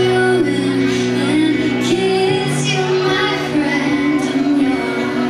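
Live rock band playing a slow ballad, with a female voice singing over sustained chords.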